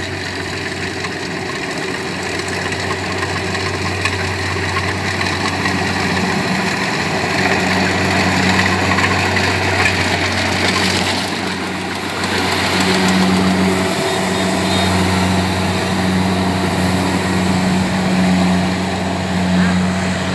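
Kubota DC70 Plus rice combine harvester running under load as it cuts and threshes: a steady diesel engine hum under the rattle of its header and threshing machinery. It grows louder about halfway through as the machine comes close.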